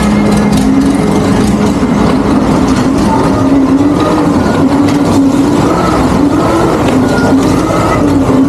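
A loud, steady engine running, its pitch wavering slightly up and down.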